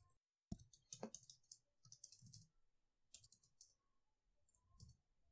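Faint, irregular key clicks of typing on a computer keyboard.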